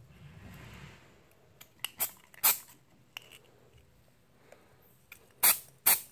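Aerosol spray-paint can giving short spritzes onto a pistol slide: two quick bursts about two seconds in and two more about five and a half seconds in.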